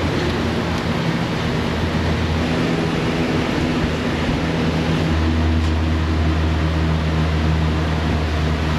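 A steady mechanical drone with a low hum, like a large fan or blower running; the hum grows stronger about five seconds in.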